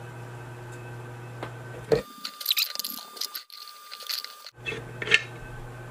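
Light metallic clicks and scrapes of tongue-and-groove pliers gripping and working a fitting on a paint pressure tank's steel lid, heard mostly about two to three seconds in and again near the end, over a low steady hum.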